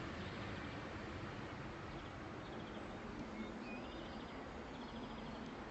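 Dawn chorus: songbirds singing faint, repeated short trills several times, over a steady background hiss.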